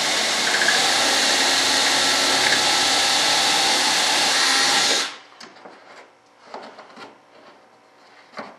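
Electric hand drill running steadily as it bores a hole with a long bit, stopping abruptly about five seconds in. Faint handling clicks and a short knock follow.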